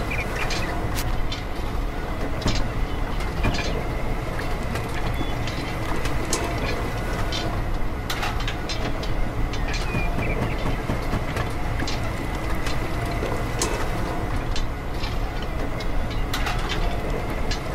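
Miniature sugarcane crusher's small belt-driven electric motor running steadily, with a constant high whine and scattered clicks as it presses out juice.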